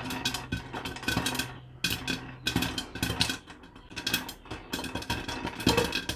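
Popcorn kernels popping dry, with no oil, in a covered pot on the stove: a dense run of sharp pops. Kernels and popped corn rattle against the pot and its glass lid as the pot is shaken.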